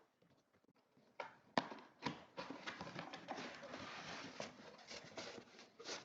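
Cardboard box and packaging of an AIO CPU cooler being opened and handled. A couple of sharp knocks a little over a second in, then steady rustling with scattered clicks.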